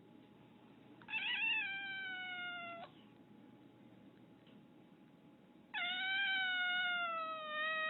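Domestic cat meowing twice, two long drawn-out meows each wavering at first and then slowly falling in pitch; the second is longer.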